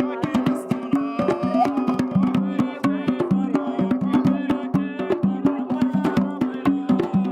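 Percussion music on hand drums, beaten in a fast, steady rhythm with several strokes a second.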